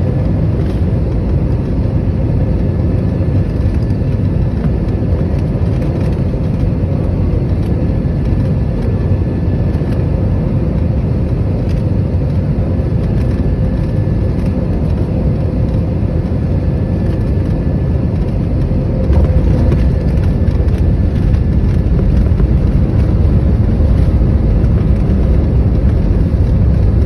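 Airliner cabin noise during the landing: a steady low rumble of engines and airflow with a faint steady hum, stepping up louder about nineteen seconds in.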